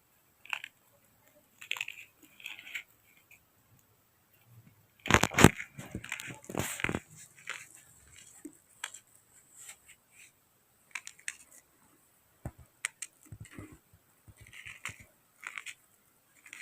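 Chunks of chalk being crushed: scattered gritty crunches and crackles, with a louder run of crunching about five to seven seconds in.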